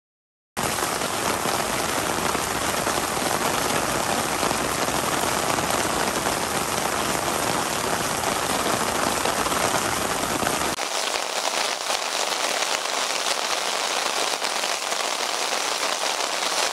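Steady rain falling, an even hiss that starts suddenly just after the start. About eleven seconds in, the sound changes abruptly to a thinner, higher rain hiss with the low rumble gone.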